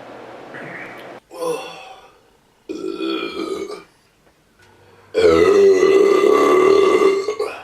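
A man's beer burps: two short burps, then a long, loud, pitched burp lasting over two seconds near the end.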